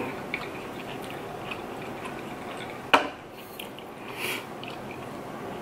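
Insulated metal water bottle set down with a single sharp knock about three seconds in, over faint room noise with a few light ticks.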